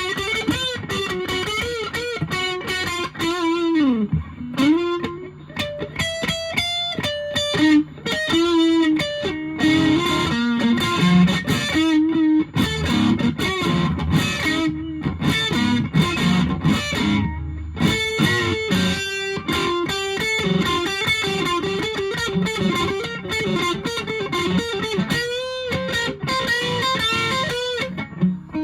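Electric guitar, a Fender Japan Jazzmaster, played through a 1985 Japanese-made Boss DS-1 distortion pedal into an ELK FSB-45 amp. It plays a distorted lead line of quick single notes with string bends, as heard by a phone microphone in front of the amp.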